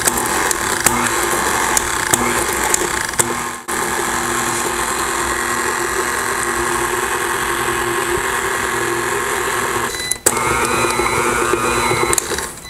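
KitchenAid tilt-head stand mixer running steadily, its beater working flour into peanut butter cookie dough until it comes together as a sticky dough. The sound breaks off briefly about four and ten seconds in, and its pitch wavers near the end.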